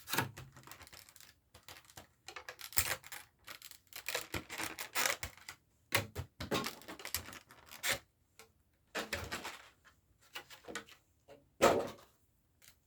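Packaging of a Pokémon TCG collection box being opened and handled: irregular tearing, rustling and scraping in short bursts with pauses, with one louder burst near the end.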